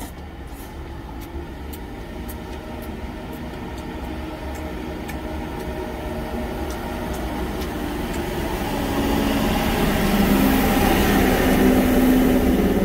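A heavy truck carrying a container approaches and passes close by, its engine growing steadily louder and loudest near the end.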